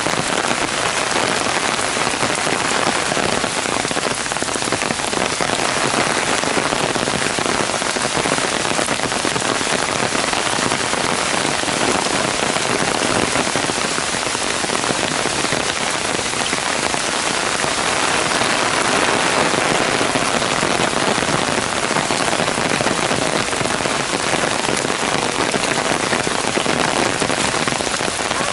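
Heavy downpour falling on a paved path and the surrounding trees and grass: a dense, steady hiss of rain.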